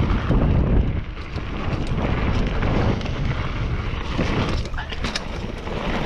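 Mountain bike descending a dirt trail: wind buffeting the camera microphone over the rumble of tyres on dirt and the rattle of the bike, with a few sharp knocks about five seconds in.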